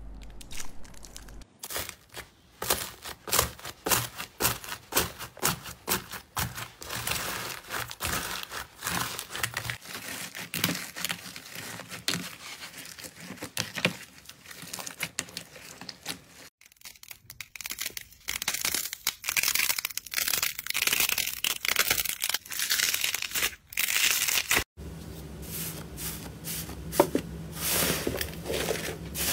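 Slime being squeezed, pressed and stretched by hand, making a dense run of quick sticky clicks and crackles, from a slime with crunchy bits mixed in among others. The sound changes abruptly about two, seventeen and twenty-five seconds in as one slime clip cuts to the next.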